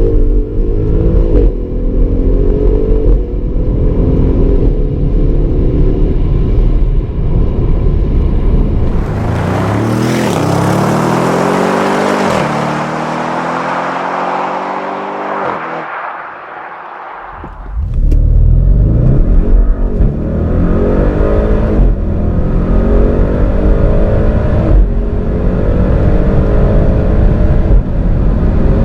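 Audi RS6's twin-turbo V8 accelerating hard, its pitch rising again and again through the gears, with a rush of wind noise in the middle. It then eases off with falling pitch, dips for a moment, and pulls hard again from about two-thirds of the way in.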